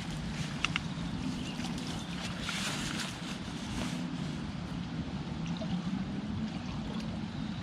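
Steady rush of a fast-flowing river with a low rumble typical of wind on the microphone. A few faint ticks come about half a second in.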